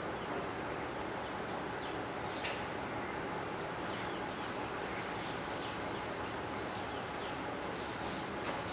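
Insects trilling outside: a thin, high, steady trill that swells in short bouts over a steady background hiss.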